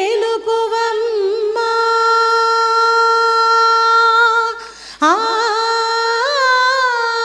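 A group of women singing a Telugu devotional song in classical style. They hold one long, steady note for about three seconds, break briefly near the middle, then go on with a phrase that has gliding ornaments (gamakas).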